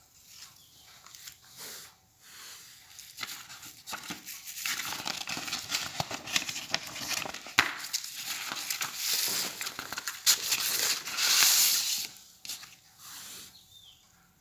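Paper rustling and scraping as a stiff invitation card is handled and slid out of its paper envelope, with many small crinkles and clicks. It starts faint, grows louder after a few seconds, and dies down near the end.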